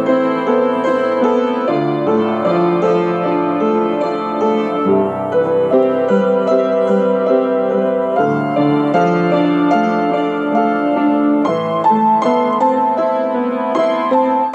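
Upright piano played solo: a melody over steadily moving chords, notes following one another without a break.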